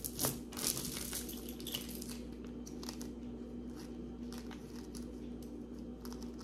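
Hands handling costume jewelry in small plastic bags: light crinkling of the plastic and small irregular clicks of metal pieces, loudest within the first second, as tangled pieces are pulled out.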